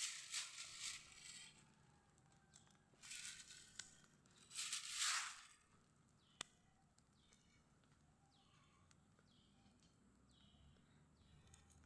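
Faint rustling of dry rubbish in three short spells, then a bird repeating a short falling chirp about every half second.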